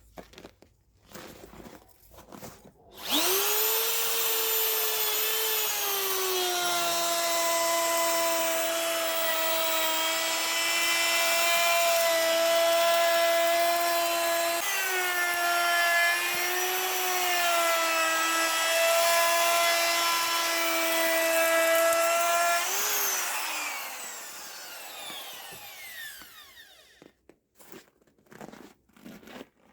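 Fiolent MF4-1100E hand router's electric motor switched on about three seconds in, spinning up to a steady high whine, its pitch dipping briefly midway, then switched off and winding down with falling pitch. It is a test run after the outer bearing was replaced, and it runs smoothly without grinding. A few handling clicks come before and after.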